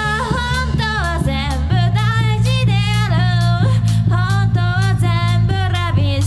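Live rock band playing: a vocalist singing held, wavering notes over electric guitar, electric bass and a drum kit.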